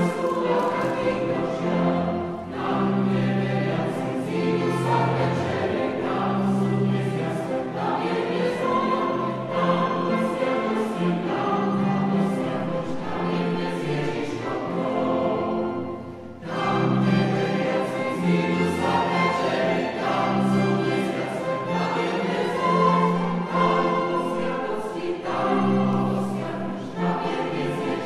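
Mixed choir singing a Slovak Christmas song, accompanied by a string quartet and piano. A brief pause between phrases comes about halfway through, then choir and instruments come back in together.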